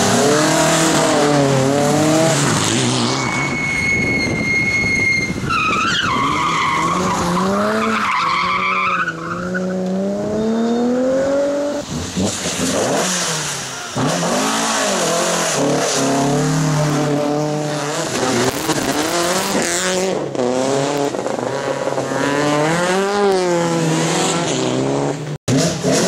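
Rally car engines revving hard, the pitch climbing and falling repeatedly through gear changes and lifts, with tyres squealing and skidding as the cars slide. The sound breaks off briefly near the end.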